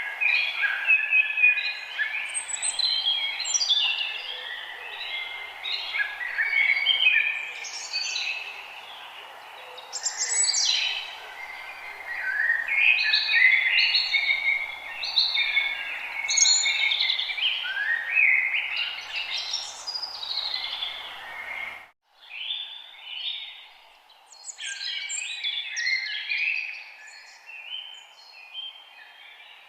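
A chorus of several songbirds singing at once, with overlapping quick chirps, trills and whistled notes over a steady background hiss. About three-quarters of the way through the sound cuts out for an instant, then the birdsong carries on softer.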